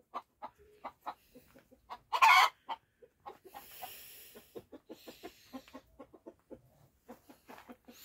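Hen clucking in short low notes, several a second, with one louder, harsher burst about two seconds in.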